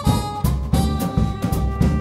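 Instrumental jazz-style music with brass and a drum kit, sustained brass chords over sharp drum hits that keep a steady beat.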